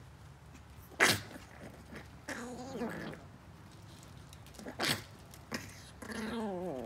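Chihuahuas vocalizing over a chew stick: two short, sharp yaps, about a second in and near five seconds, and between them wavering, drawn-out grumbling calls, the last one falling slightly in pitch.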